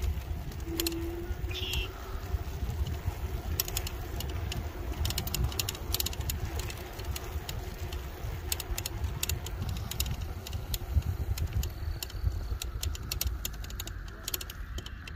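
Wind rumbling on the microphone of a moving electric bike or scooter, with frequent sharp rattling clicks as it rides over cracked asphalt.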